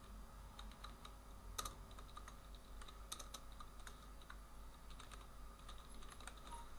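Faint typing on a computer keyboard: scattered, unevenly spaced keystrokes over a low steady hum.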